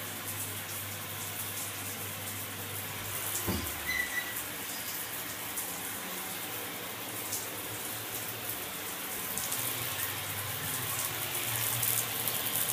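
Electric shower running, water spraying steadily, with a soft knock about three and a half seconds in.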